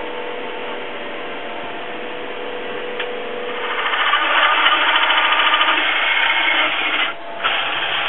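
A steady background hum, then from about halfway a cordless drill driving a hole saw through a wooden board, with a rough grinding of teeth cutting wood. It stops briefly near the end and starts cutting again.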